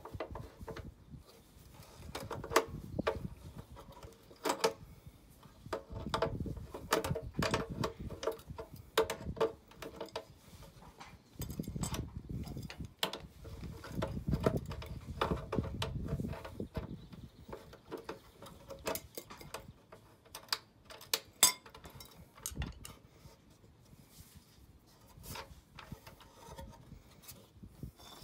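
Irregular metal clicks and clinks of an adjustable spanner worked on the rear axle nut of a Razor E200 electric scooter to take the rear wheel off, with duller handling knocks and rubbing between; the clicks grow sparser near the end.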